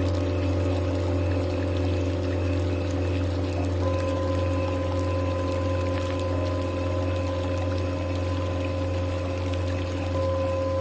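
Tibetan singing bowls ringing in long, overlapping sustained tones over a steady low hum. A new, higher bowl tone enters about four seconds in and another near the end.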